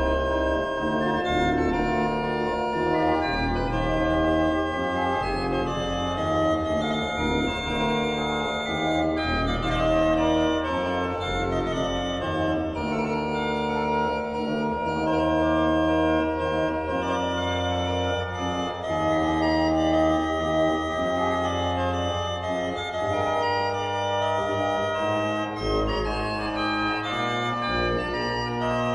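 Pipe organ playing an 18th-century chorale prelude: several lines held in slow-moving chords over a sustained low pedal bass.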